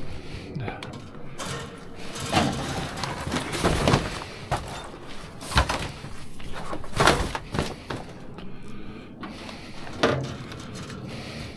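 Scrap metal being loaded into the back of a van: a thin metal panel and a wire mesh rack knocking and clattering against the load, with a string of sharp knocks, the loudest about five and a half, seven and ten seconds in.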